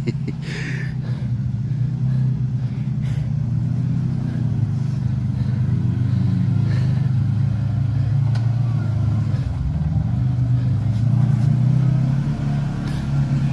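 Off-road vehicle engine running at low revs while crawling, a steady low drone with small rises in pitch as the throttle is eased on.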